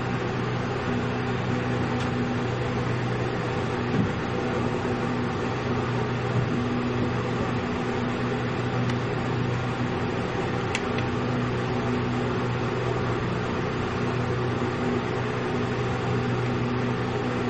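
Steady mechanical hum of a motor-driven room appliance running, a constant low drone, with a couple of faint clicks.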